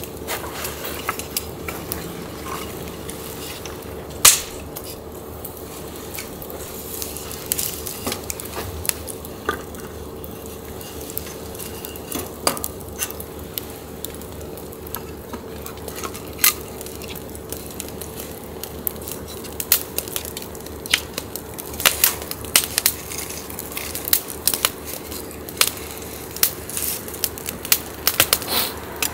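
Wood fire burning in a folding steel fire pit, crackling with irregular sharp pops that come more often in the second half, over a faint steady hum.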